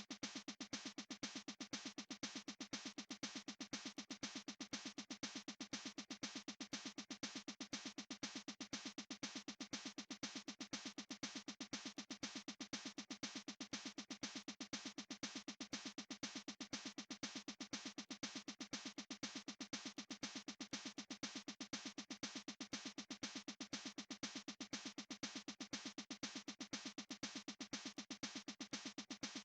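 Faint electronic background music: a synthesized tone repeating as fast, even pulses without change.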